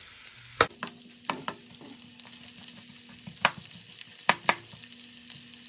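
Sliced onions sizzling in hot cooking oil in a wok while a spatula stirs them, with clicks and scrapes against the pan and three louder sharp knocks.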